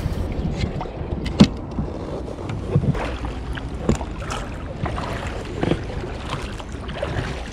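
Small inflatable boat on canal water, with water sloshing and a handful of irregular knocks and splashes against the hull, over a steady rumble of wind on the microphone.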